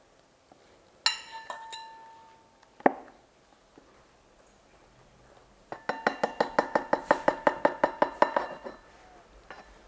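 Metal fork clinking against a ceramic bowl while wet dog food is scraped out of a carton into it. There is one ringing clink about a second in, a sharp knock near three seconds, then a quick run of ringing taps, about six a second, for nearly three seconds.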